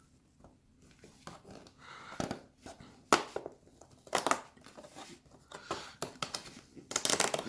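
Packaging of a Lego advent calendar being opened: the cardboard door tearing and the wrapping crinkling in irregular bursts.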